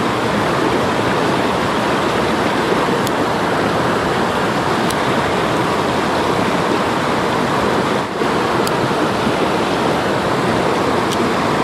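Rushing water of shallow stream rapids tumbling over boulders, a steady loud rush.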